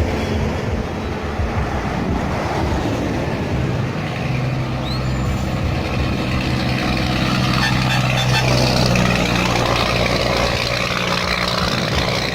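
Scania truck diesel engine running with a deep, steady rumble, growing louder toward the middle and easing slightly after.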